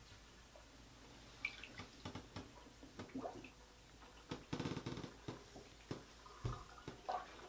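Faint movement noises of a person in a small bathroom: scattered light knocks and rustles, a couple of brief squeaks, and a denser rustle about halfway through.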